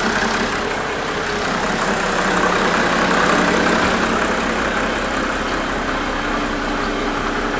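Mercedes 300SD's OM603 turbo-diesel straight-six idling steadily, almost sounding normal.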